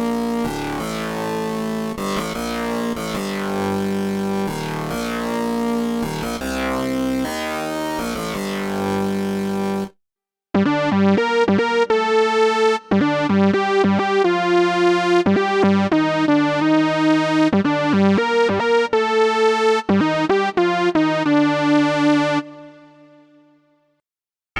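MOK Miniraze wave-slicing synthesizer plugin playing two patches. First comes a full, held chordal sound with changing chords for about ten seconds. After a brief break, a brighter patch plays a quick line of short notes that stops and rings out near the end.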